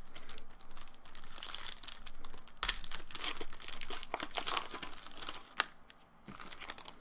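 A trading-card pack wrapper being torn open and crinkled by hand: a dense run of crackling, rustling and sharp clicks that dies down near the end.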